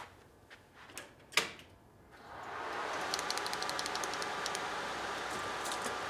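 A few soft steps and a sharp click, then about two seconds in a steady rushing whir with a faint hum rises quickly and holds as a Trotec laser cutter's fan starts up. A quick run of light ticks sits on top of the whir soon after.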